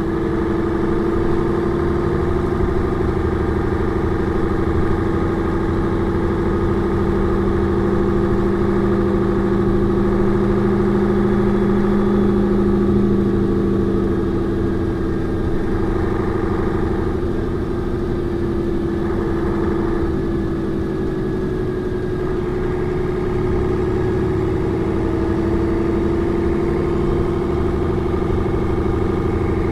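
1996 Mercedes-Benz O405N2 city bus engine running steadily with a constant hum. A lower tone in the hum drops away about halfway through, and the note shifts slightly after that.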